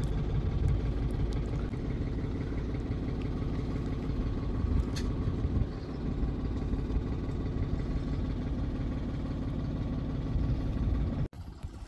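Tractor diesel engine running steadily at low revs, cutting off abruptly near the end.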